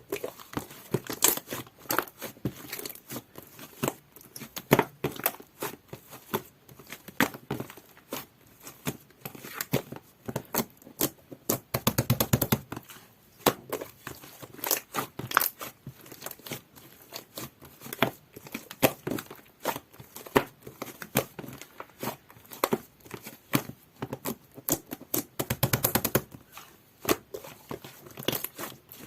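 Slime being squished, pressed and stretched by hand, giving irregular sticky clicks, pops and crackles, several a second.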